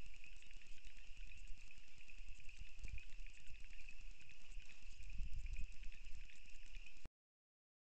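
Steady high chirring of a night insect chorus in an open field, with low rumbling on the microphone that swells about three seconds and five seconds in; the sound cuts off abruptly about seven seconds in.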